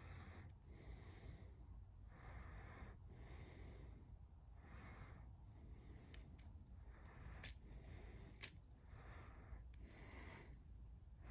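Near silence: soft, regular breathing close to the microphone, a breath every second or so, over a low room hum, with a couple of faint clicks past the middle.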